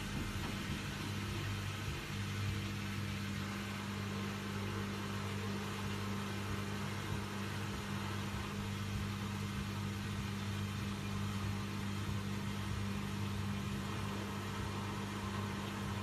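Hoover 8 kg front-loading washing machine's drum and motor running with a steady hum, turning a badly unbalanced load on a cotton 90 °C cycle's spin.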